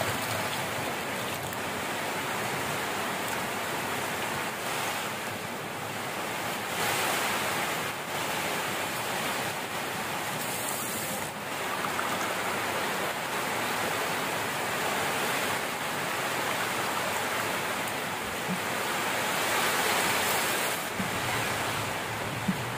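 Heavy rain falling steadily, a dense even hiss of water that swells and eases slightly.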